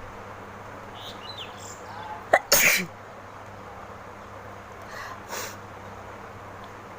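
A woman sneezes once, loudly, about two and a half seconds in: a sharp catch of breath, then the noisy burst of the sneeze. A fainter breathy sound follows about five seconds in.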